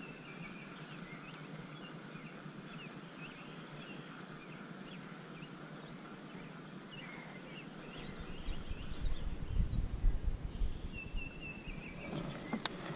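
Small birds chirping, a scattering of short high calls with a couple of brief trills. About two-thirds of the way in, a low gusting rumble of wind on the microphone comes in, with one sharp click near the end.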